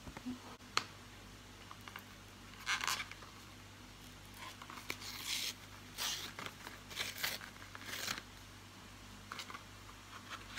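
Round cardboard box of foil-wrapped cheese wedges being torn open by its tear strip: several short ripping and crinkling sounds about a second apart, with a few small clicks.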